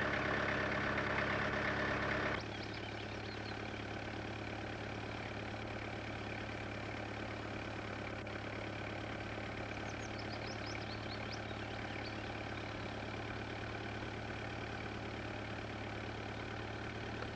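An engine idling steadily, a constant low hum that drops in level about two seconds in. A few faint high chirps come around the middle.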